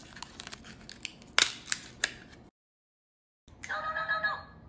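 Scissors snipping through a stiff plastic blister pack, a run of sharp cuts with the loudest near the middle. After a short silence, a pitched sound with several tones starts near the end.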